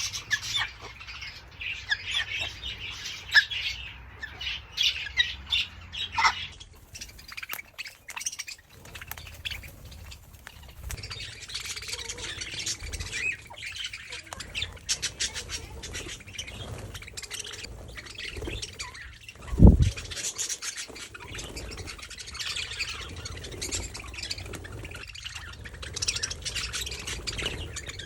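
Major Mitchell's cockatoos squawking amid many short high chirps and calls, with one loud low thud about two-thirds of the way through.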